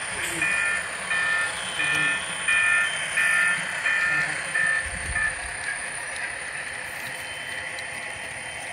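Sound-equipped HO-scale model diesel locomotive sounding its horn in about eight short blasts, each under half a second, during the first five seconds. Afterwards the freight cars roll by quietly on the layout's track.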